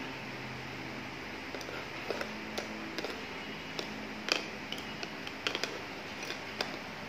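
Small tongs clicking and scraping against a toy frying pan and a toy sausage as the sausage is picked up and turned, a scatter of light taps with the loudest about four seconds in, over a steady hiss.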